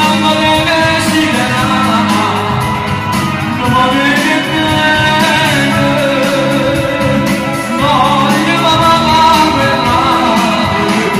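A man singing live into a handheld microphone, amplified over backing music, with long held notes that waver in pitch.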